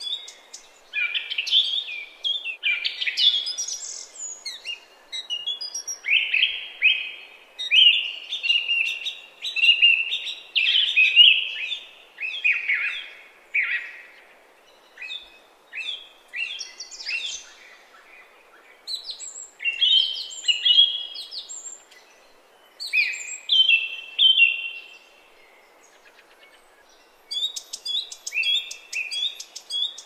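Songbird song: a run of varied, rapid whistled and chirping phrases with short pauses, over a faint steady background hiss.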